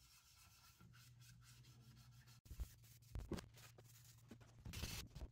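Faint rubbing of a cloth wiping oil finish onto a wooden box. There are a few soft knocks around the middle as the box is handled, and a brief louder rub near the end.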